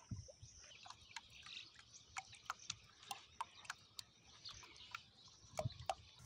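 Faint, irregular drips and small plinks of pond water around a plastic-bottle float bobbing on the surface, with a slightly louder pair of small splashes near the end.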